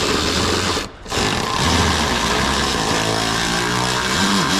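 Cordless power driver whirring as it runs a fastener in. It stops briefly about a second in, then runs again.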